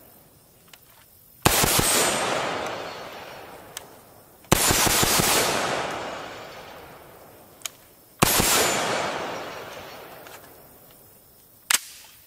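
Bushmaster ACR rifle firing three double taps, each burst of shots cracking sharply and then echoing away over a few seconds. A faint click, the safety being flicked onto fire, comes just before each burst, and a short sharp click comes near the end.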